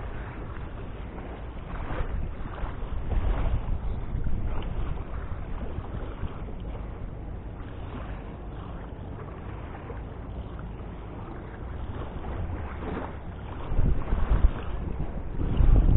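Wind buffeting the microphone in gusts, a low rumble that swells a couple of seconds in and again near the end.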